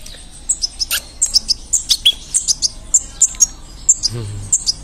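Fledgling European goldfinch giving rapid, thin, high chirps, several a second: the begging calls of a hungry chick asking to be fed.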